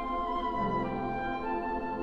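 Women's chorus singing held notes with instrumental accompaniment; the chord shifts about half a second in and again near the end.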